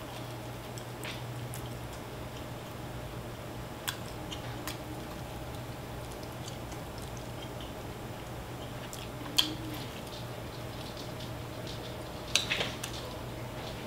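A person eating a fried chicken drumstick: faint chewing with a few short sharp mouth clicks, about four seconds in, near the middle and a quick pair near the end, over a steady low hum.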